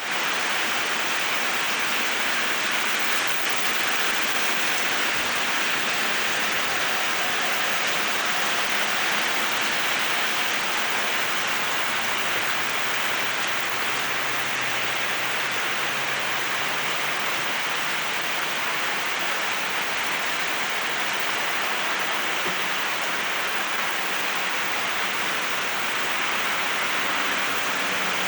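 Steady rain falling, an even continuous hiss of rain on surfaces.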